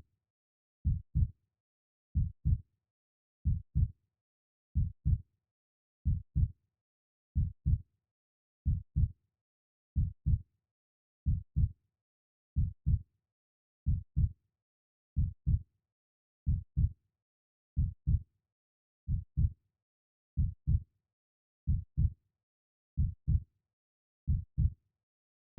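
Heartbeat: a steady, slow lub-dub, pairs of low thumps repeating about 45 times a minute, with silence between each pair.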